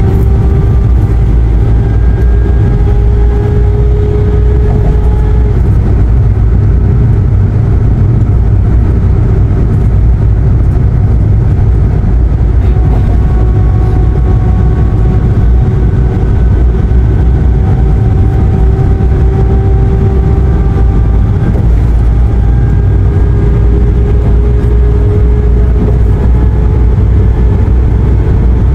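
Steady low road and engine rumble heard inside a passenger van's cabin while it drives on an expressway, with a fainter drone that slowly rises and falls in pitch as the van's speed changes.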